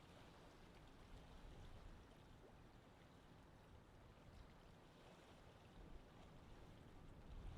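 Near silence: faint steady background noise with a low rumble.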